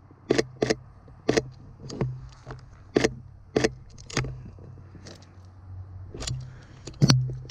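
Sony A7 III camera's shutter clicking about ten times at an irregular pace, the loudest click near the end, over a steady low hum.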